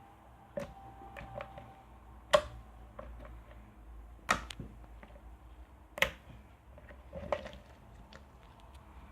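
Slime being squeezed and pressed by hand, letting out sharp popping clicks from trapped air bubbles: five loud pops a second or two apart, with smaller crackles in between.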